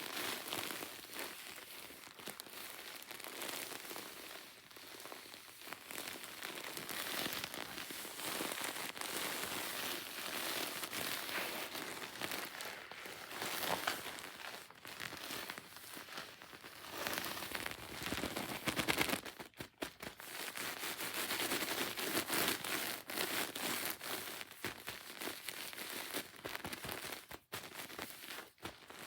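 Close-up crackling and crinkling from something being rubbed and handled right at the microphone, going on almost without a break, with a short pause about two-thirds of the way through.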